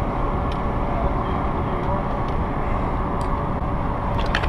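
Steady low rumbling background noise aboard a small boat, with a few faint clicks near the end.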